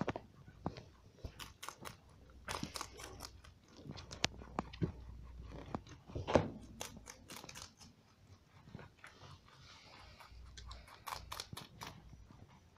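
Pet rabbit biting and chewing a hand-held leaf of Chinese cabbage: a quick, irregular run of small crisp crunches, one louder about halfway through.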